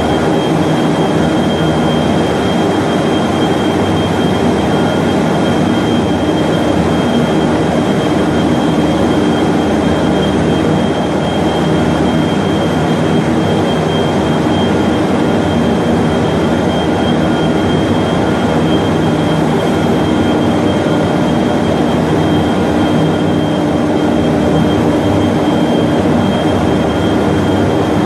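Dryer section of a large copy-paper machine running: a loud, steady machinery whir with a thin, constant high-pitched whine over it.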